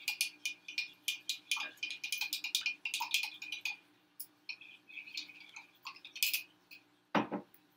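A metal utensil clinking and scraping rapidly against a pot, in two runs of quick strokes with a short pause between them.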